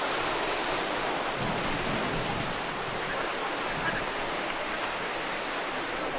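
Sea surf washing onto the beach, a steady, even rush with no separate breakers standing out.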